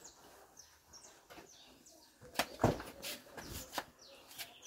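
Birds chirping throughout, with short high falling calls, and a few loud knocks and clatters about halfway through from building material being handled on a truck bed.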